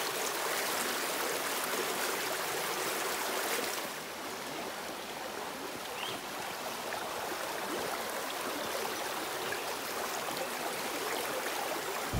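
Creek water flowing through and out of steel culvert pipes and over loose creek rock: a steady rushing. The sound gets a little quieter and duller about four seconds in.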